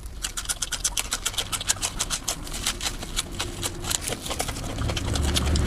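Close-miked eating sounds: rapid, irregular crisp clicks and crunches of chewing, several a second. A low rumble comes up near the end.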